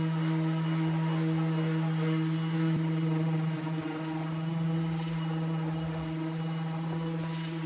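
Electric random orbital sander running at a steady speed with an even hum while sanding bare wood.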